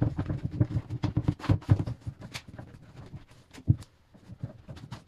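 A cloth towel rubbed hard over vinyl wrap on a hard bag shell to press out air gaps: quick, irregular scuffing and knocking, busiest in the first two seconds, with a sharper knock a little before four seconds in.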